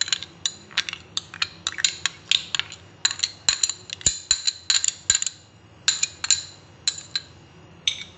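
A metal spoon clinking and scraping against glass bowls while ketchup is scraped out of a small glass bowl onto meat: sharp, ringing clinks, about two or three a second, with a short pause a little past halfway.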